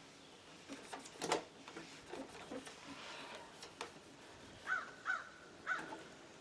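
A bird calling three times near the end, short harsh calls close together. Earlier there is a sharp knock about a second in and light rubbing and clicking from handling and scrubbing the plastic monitor case.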